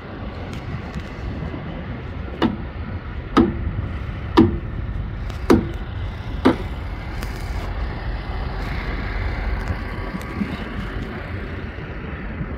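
Five sledgehammer blows on a semi-trailer wheel rim, about one a second, each with a short metallic ring, as the rim is hammered to straighten a bend. A steady low rumble runs underneath.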